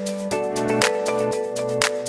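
Background music: sustained chords with a regular beat of sharp percussion hits, about two a second.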